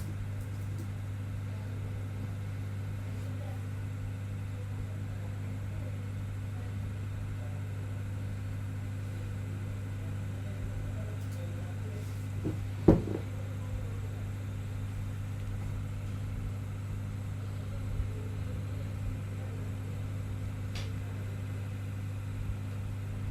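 A steady low hum with no speech. A sharp click comes about thirteen seconds in, with a few fainter clicks around it and later.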